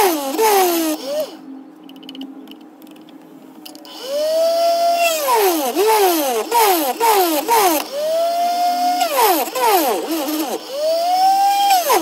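A small bench drill's motor whines under load while a 1.5 mm bit drills a hole through a small hammer part. The pitch keeps rising and falling as the bit bites and frees. The whine drops much quieter from about one to four seconds in.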